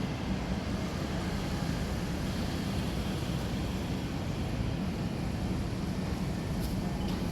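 Steady rushing hum of ventilation fans and air-conditioning units running, with a constant low drone under the air noise.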